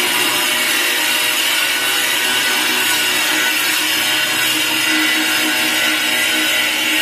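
Angle grinder running steadily, a continuous loud, harsh whine with no let-up.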